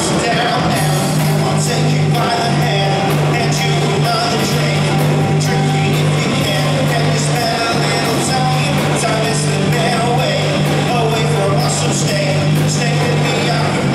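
Live rock band playing: a male singer over electric bass, drums and guitar, with a steady bass line and frequent cymbal hits.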